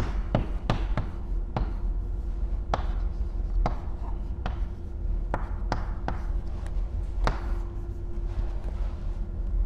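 Chalk writing on a chalkboard: irregular sharp taps, about one or two a second, as each stroke lands, with light scratching between them as letters and a long line are drawn.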